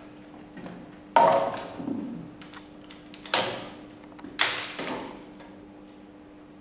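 Sharp clacks and knocks from hands working on a coil winding machine, four of them, each with a short ringing tail, about a second in, just over three seconds in, and twice more a little after that. A faint steady hum runs underneath.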